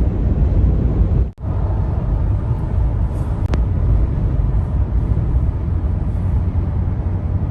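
Steady road and engine noise of a car driving at speed, heaviest in the low rumble, broken once by a short gap about a second and a half in.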